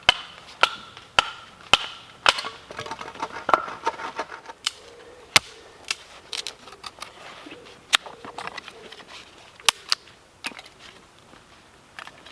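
A wooden baton striking the spine of a bushcraft knife to split firewood. Sharp knocks come about two a second for the first couple of seconds, then single blows more spaced out.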